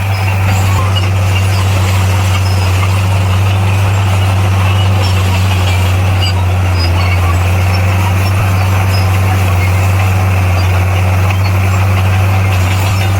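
Bulldozer's diesel engine running at a steady speed: a loud, even low drone that does not rise or fall.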